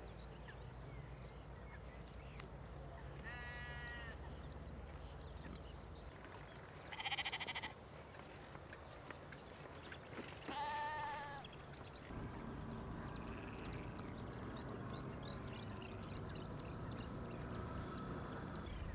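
Sheep bleating three times, about three and a half, seven and ten and a half seconds in, each call short and wavering; the middle one is the loudest.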